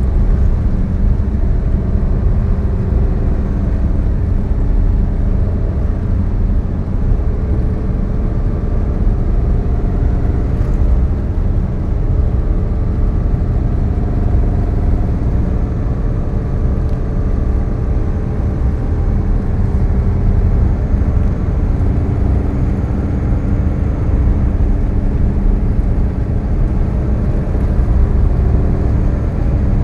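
Steady road noise inside a car cruising at highway speed: tyre rumble with the engine's hum, unchanging throughout.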